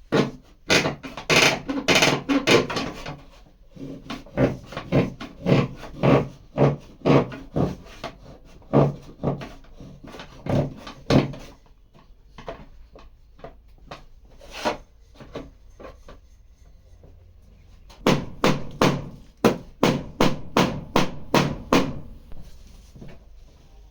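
Hammer tapping on a car body panel during dent repair: runs of sharp, separate strikes, fast at first, then steady at about one or two a second, a pause, and another fast run near the end.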